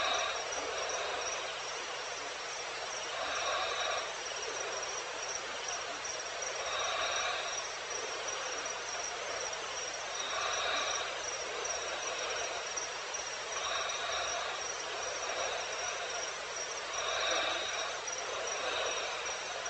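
Night insect chorus: a dense, steady hiss of insects with a high, pulsing cricket-like trill. Over it, a call with several pitches lasts about a second and repeats roughly every three and a half seconds.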